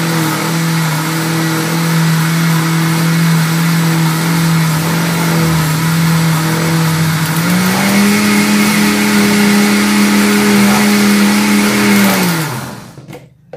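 Red countertop blender running steadily, mixing a milky ice-cream base with strawberry drink powder. Its motor hum steps up in pitch about halfway through, then it is switched off and winds down near the end.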